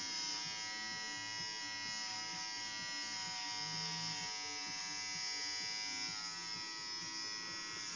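Electric hair clippers buzzing steadily as they shave a head close to the scalp.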